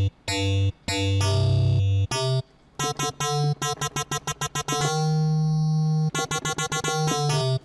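Synth bass patch from the Serum software synthesizer, played as a line of separate notes on a MIDI keyboard: a few long low notes, then quick short notes, one note held for about a second near the middle, and another quick run near the end.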